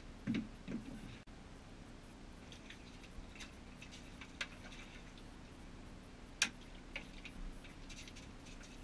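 Scattered light clicks and knocks of people moving and handling gear, with two duller thumps about half a second in and a sharp click near six and a half seconds, over a faint steady low hum.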